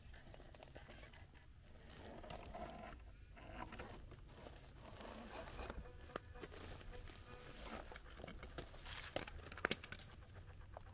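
Dry leaf litter and twigs crackling and crunching faintly under the tyres of a 1/10-scale Element RC Enduro Trailrunner crawler as it creeps down a steep rock, with a few sharp clicks near the end.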